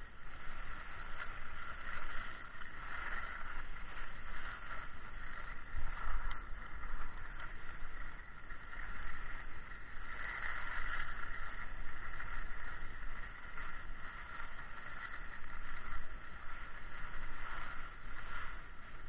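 Skis sliding and scraping over the snow in a steady hiss that swells and fades with the turns, over a low rumble of wind on the microphone.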